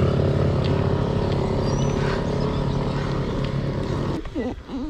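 Motorcycle engine running steadily at close range, cutting off suddenly about four seconds in.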